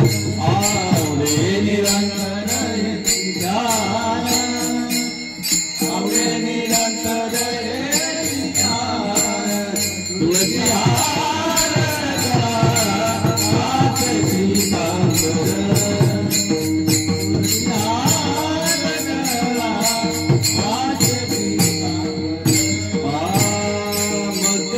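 Marathi devotional bhajan: a man sings long drawn-out phrases over a steady drone. Small hand cymbals jingle constantly in rhythm with the singing.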